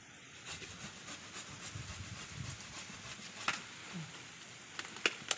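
Hand saw cutting through a red waru (sea hibiscus) branch below its air layer, with a few sharper knocks about three and a half seconds in and twice near the end.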